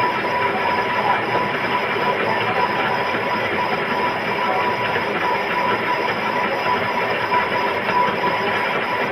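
Metal lathe running and turning a coupling pulley for a meatball grinder: a loud, steady mechanical noise with a thin, steady whine.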